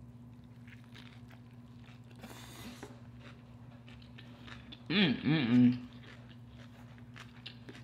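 Close-up chewing of a taco, with small wet mouth clicks and smacks. About five seconds in comes a short hummed "mm-mm-mm" of enjoyment, its pitch bobbing up and down; this is the loudest sound.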